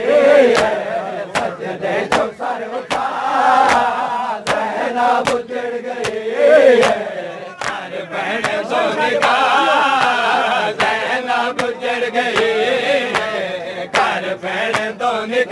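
A group of men chanting a noha, with a steady rhythm of sharp chest-beating slaps from the matam.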